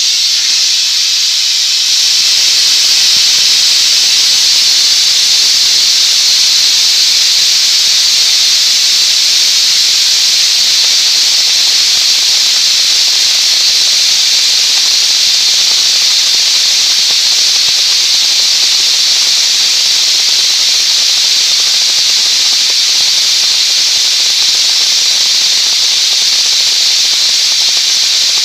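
Compressed air from a screw air compressor hissing out in a loud, steady rush, a little louder about two seconds in.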